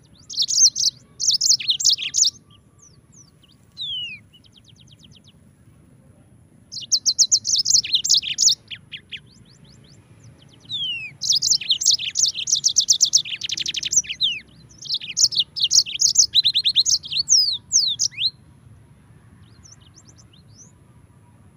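Yellow-fronted canary (Mozambique canary) singing in bursts of rapid, high trills and quick down-slurred notes. The song comes in several phrases broken by short pauses, with the longest run through the middle, then it stops near the end.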